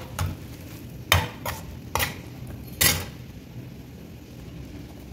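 A steel spoon stirring a thick okra masala in a frying pan, knocking against the pan about five times in the first three seconds. A faint steady sound of the cooking pan runs underneath.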